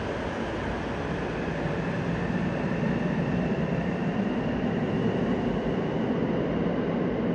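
Tokyo Metro Namboku Line subway train departing the platform and accelerating away into the tunnel: steady running noise, with the motor whine rising slowly in pitch over the first few seconds.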